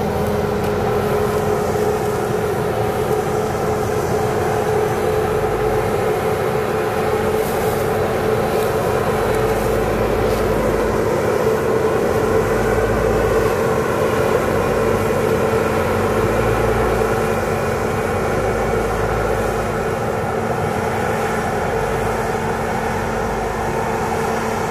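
Articulated dump truck's diesel engine running with a steady drone while the hydraulic hoist raises the loaded bed and red soil slides out of it.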